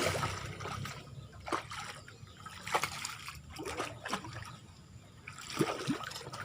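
Water splashing in short irregular bursts: a hooked fish thrashing at the surface of the pond as it is played on the line.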